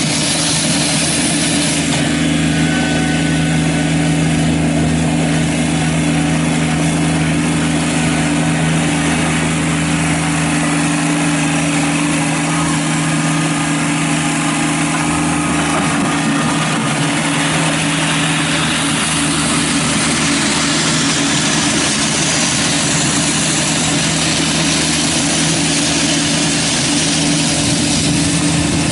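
Kubota BX23S tractor's three-cylinder diesel engine running steadily.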